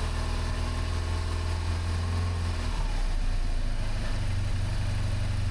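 BMW R1200GS air/oil-cooled flat-twin boxer engine idling steadily while its throttle bodies are being synchronised. About three to four seconds in, the idle note steps slightly higher.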